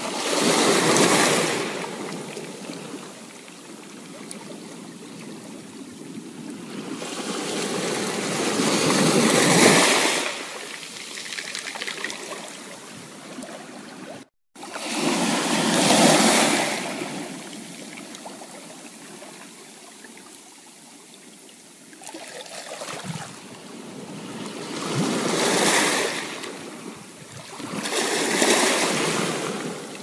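Small ocean waves breaking on a sandy shore and washing back: a soft steady wash that swells into about six surges, each a few seconds apart. The sound cuts out for an instant about halfway through.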